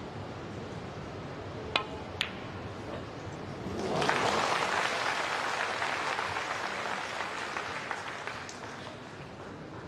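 Two sharp clicks of snooker balls from a shot, about half a second apart, then audience applause that starts about four seconds in and slowly dies away.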